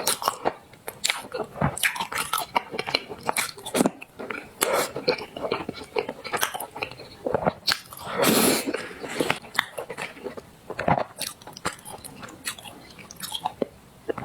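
Close-miked eating of black sesame paste: chewing and biting mouth sounds, a quick irregular string of smacks and clicks, with a longer noisy mouth sound about eight seconds in.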